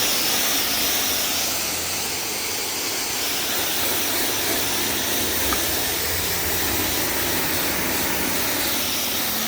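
Self-serve car wash equipment running after a button is pressed: a steady rushing hiss of air or water with slow swells.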